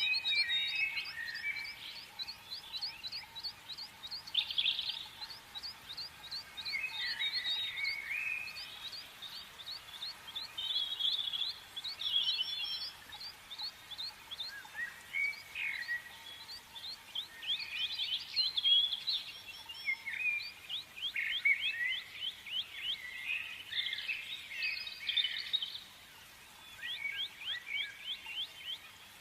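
Small birds singing: rapid trills of short, high, falling chirps, broken up by other scattered chirping notes.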